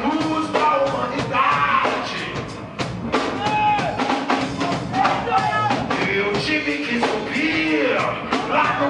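Live reggae band playing, with a drum kit keeping a steady beat and a male vocalist singing into a microphone over it.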